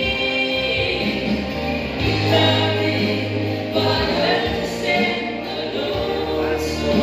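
A woman singing a Hmar gospel song into a microphone through a PA, with long held notes over backing music.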